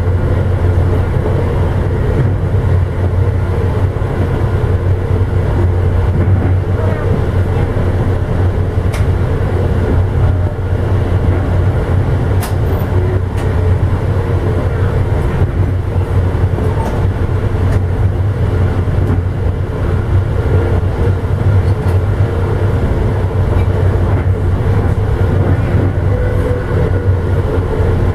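Amtrak Illinois Zephyr passenger train running at speed, heard from inside the rear car: a steady low rumble of the wheels on the rails, with a few faint clicks.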